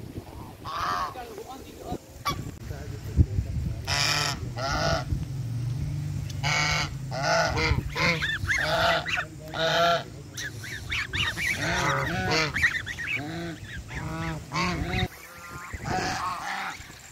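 Domestic geese honking over and over, loud calls coming singly and in quick runs of two or three, over a steady low rumble that cuts off about 15 seconds in.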